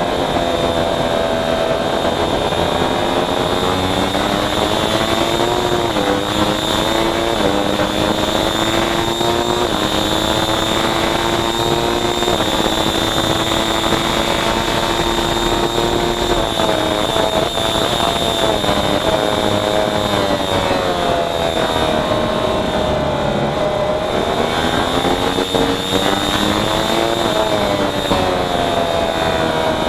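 Racing motorcycle engine at full race pace. It climbs in steps through the gears early on, holds a long steady high-revving stretch, then drops and picks up again several times as it brakes and accelerates through corners. A steady high whine sits above the engine note.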